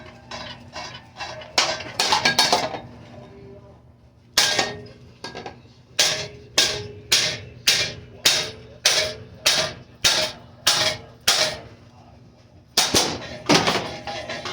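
Repeated hard metallic whacks on a ceiling fan being smashed: a quick flurry of hits, a single blow, then a steady run of about two hits a second, and one more loud blow near the end.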